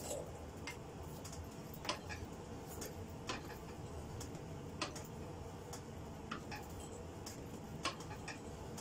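Hand-operated fly press with a drawing attachment drawing out a glowing pattern-welded steel billet: sharp clicks and knocks at irregular intervals, roughly one a second, over a low steady hum.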